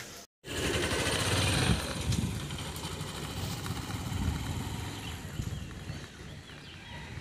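Motorcycle engine running as the bike rides away, its sound fading steadily.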